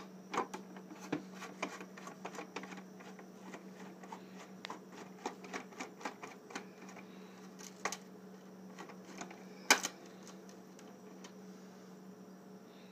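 Small irregular clicks and taps of a Phillips screwdriver turning a screw out of a plastic tool housing, with one sharper click about ten seconds in.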